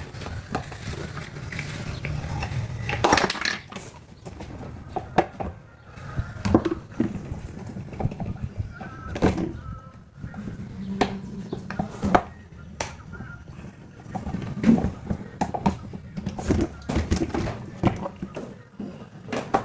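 Plastic parts of a household electric fan being handled and taken apart: irregular clicks, knocks and clatter, over a low steady hum.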